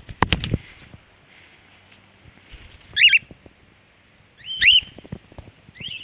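Cockatiel wings flapping close by just after the start, then cockatiels calling: two loud whistled calls that rise and fall, about a second and a half apart, and a fainter one near the end.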